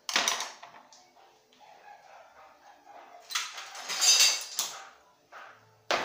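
A sharp knock, then about three seconds in a louder stretch of rattling and scraping lasting a second or so: the removed plastic agitator and metal puller of a top-loading washing machine being handled and set down.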